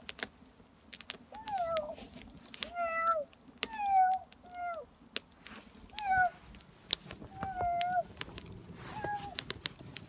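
A cat meowing over and over, about eight short falling meows roughly a second apart, with sharp pops and crackles from a wood fire burning in a metal brazier.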